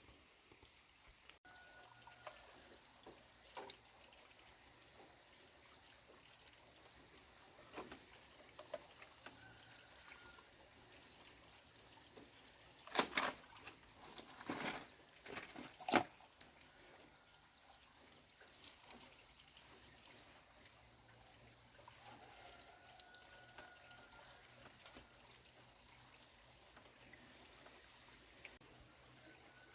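Water poured or splashed in a few short bursts about halfway through, over a faint quiet background.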